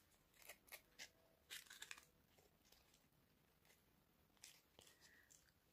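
Near silence, with a few faint scratchy rustles of cardboard being handled as a cardboard ear is pushed into a slit in the cardboard body, about half a second to two seconds in and again near the end.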